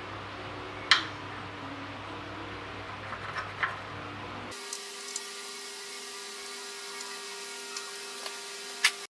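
Metal parts clicking and tapping as a threaded stud is fitted by hand into a threaded boss on the mill drill's head: a sharp click about a second in, a few smaller ticks, and another sharp click near the end. A steady background hum runs under it and changes abruptly about halfway through.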